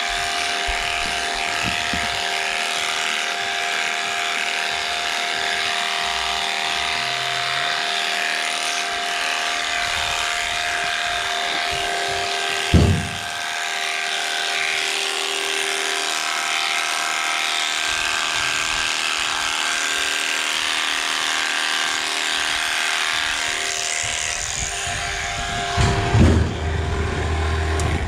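Electric sheep-shearing handpiece running steadily with a constant whine as it cuts the fleece off a sheep. A sharp knock cuts in about halfway through, and another cluster of knocks comes near the end.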